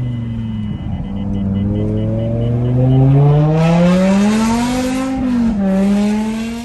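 BMW M5's S85 5.0-litre V10 engine revving under acceleration: the pitch drops, then climbs steadily for about three seconds with a rushing hiss over it, dips briefly and holds. It cuts off abruptly at the end.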